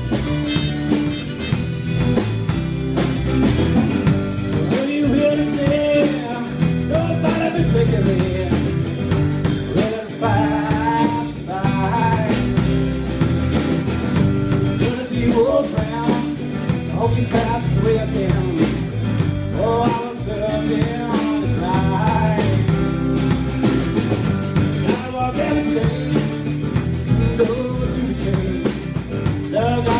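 Live band music: acoustic guitars strumming over electric bass and a drum kit, with a melody line winding above.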